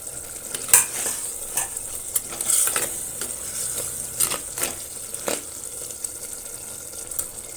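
Onions simmering in water in a cooking pan with a steady sizzling hiss, over which a utensil clinks and knocks against the pan about seven times, the loudest under a second in.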